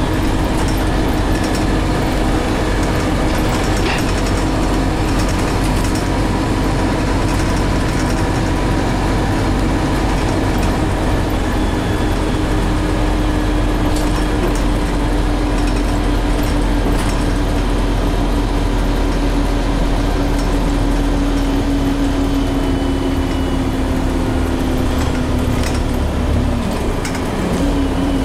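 Scania CN280UB city bus under way, heard from inside the passenger cabin: a steady engine and drivetrain drone with road noise. A whine in it slowly drops in pitch, dipping briefly near the end.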